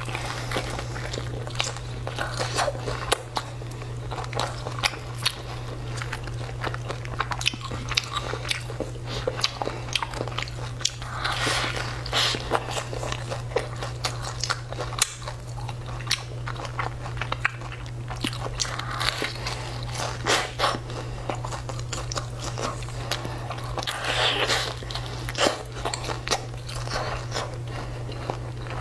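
Close-miked biting and chewing of a crisp-crusted burger with egg and meat filling: crunching, crackling and wet mouth sounds, over a steady low hum.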